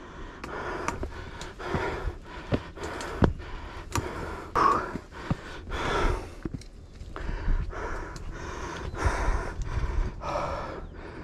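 A hiker breathing hard while climbing stone steps, roughly a breath a second, with footsteps and short scuffing clicks on the steps.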